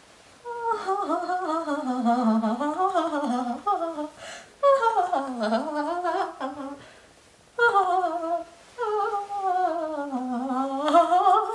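A woman humming a wandering tune in four phrases, her pitch sliding up and down, with a brief rustle about four seconds in.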